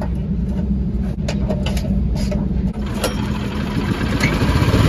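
Loncin 5.5 hp single-cylinder petrol engine on a compressor being pull-started with a newly fitted recoil cord: clicks and knocks of the cord and starter, then the engine catches and runs, louder, near the end. A steady low engine rumble is there throughout.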